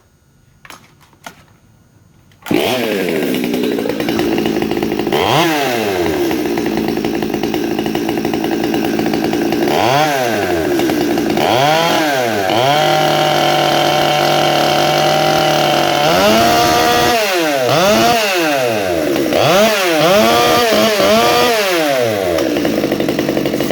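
Stihl MS 200 two-stroke chainsaw, freshly ported and tuned, catching about two and a half seconds in. It is then revved in repeated quick throttle blips, held at full throttle for a few seconds midway, and blipped again several times.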